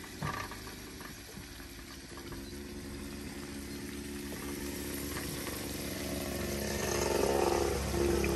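Hot oil sizzling faintly in a frying pan, with a light clink of forks against the pan just after the start. Over the second half a motor engine's steady hum grows louder and becomes the loudest sound near the end.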